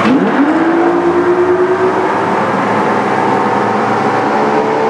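Twin 200-horsepower Evinrude E-TEC outboards accelerating hard from the start. Their pitch sweeps up quickly, then keeps climbing steadily, over the rush of the wake.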